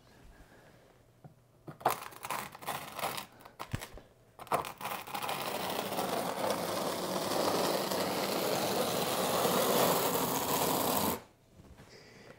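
A quarter-inch notched trowel scraping thinset mortar across cement board: a few separate strokes, then steady scraping for about six seconds that stops abruptly.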